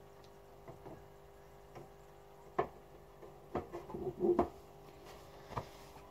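Scattered light knocks and clicks of handling over a faint steady hum. The sharpest knock comes about two and a half seconds in, and a denser run of knocks and rubbing follows around four seconds.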